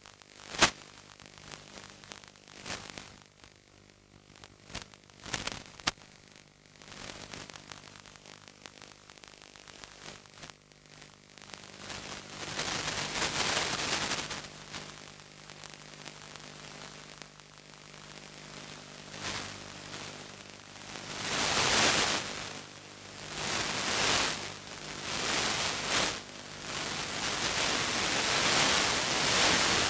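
Hiss and static from an analog 5.8 GHz FPV video receiver, with a faint steady hum underneath. A few sharp crackles come in the first six seconds, then the static swells in loud waves from about twelve seconds in as the downlink signal weakens.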